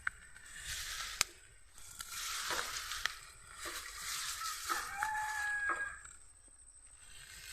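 A rooster crowing once, with a held note about five seconds in, over a rustling hiss and a few sharp clicks.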